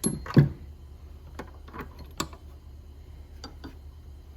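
Metal hand tools being handled and set down: two knocks close together, then a few scattered light clicks.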